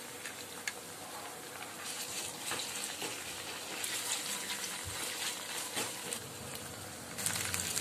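Ginger-garlic paste, green chillies and onions sizzling in hot oil in a stainless steel pan, with a spatula stirring and scraping against the pan. The sizzle gets louder near the end.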